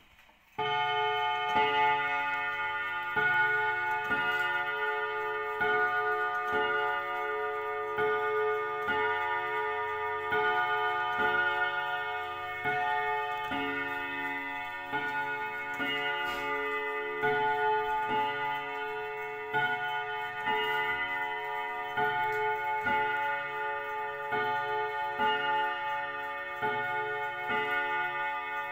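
A 1921 Mauthe mantel clock striking at twelve o'clock: a long series of struck chime notes about every 1.3 seconds, each ringing on into the next, starting suddenly about half a second in.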